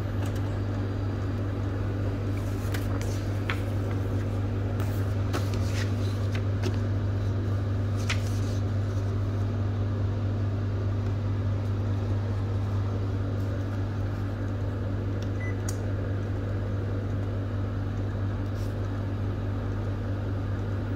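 Kyocera TASKalfa 4053ci multifunction copier-printer running with a steady low hum from its fans and motors, with a few light clicks in the first half.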